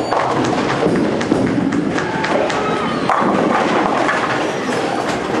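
Bowling alley din: balls thudding and rolling down the lanes and pins clattering, with many short knocks, over background chatter of bowlers and spectators.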